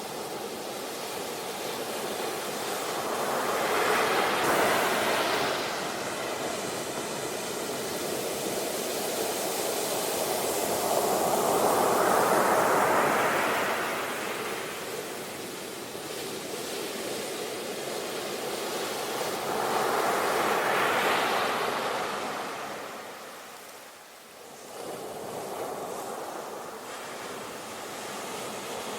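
Sea waves washing onto a shore, a continuous rushing hiss that swells three times as waves break, with a brief lull about 24 seconds in.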